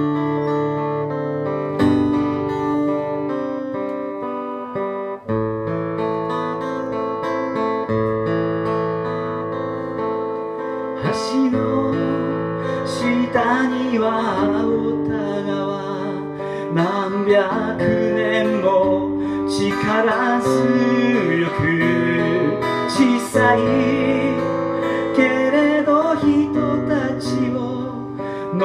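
Solo acoustic guitar strummed in chords. About twelve seconds in, a man starts singing over it.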